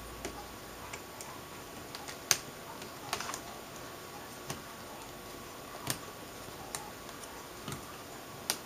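Scattered small clicks and taps of fingers handling the sheet-metal frame of an LCD panel and the LED backlight's wire, the loudest about two seconds in.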